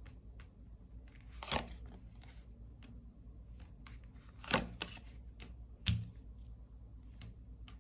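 Tarot cards being handled and drawn from the deck, with light clicks and rustles and three sharper slaps, about a second and a half apart, as cards are laid on the table.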